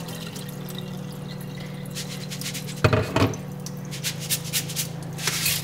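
First rinse water draining from washed rice through a fine-mesh metal strainer into a steel sink, with a short clatter of the glass bowl against the strainer about three seconds in and light taps and drips after.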